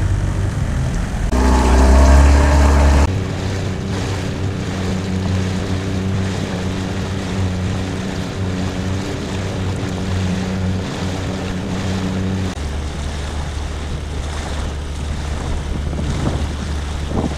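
Small boat's motor running at a steady drone over water splash and wind on the microphone, loudest and fullest in the first few seconds. The motor drops away about twelve seconds in, leaving only water and wind.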